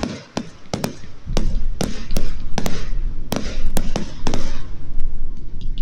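Aerial fireworks bursting overhead in a rapid series of sharp bangs, about a dozen over a few seconds, some coming close together.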